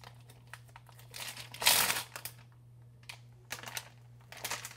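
Crinkling of a plastic package of sliced cheese being handled, in irregular bursts, the loudest a little under two seconds in. A faint steady low hum runs underneath.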